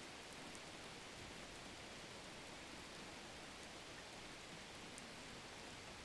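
Near silence: a faint, steady hiss with no distinct sounds in it.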